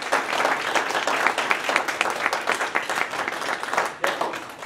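A small audience applauding: many quick overlapping hand claps that thin out and die away near the end.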